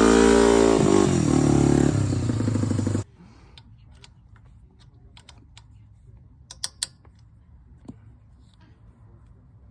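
Yamaha motorcycle engine revving up and dropping back, then cutting off abruptly about three seconds in. After that, scattered light clicks and taps, the sharpest a pair just before seven seconds in.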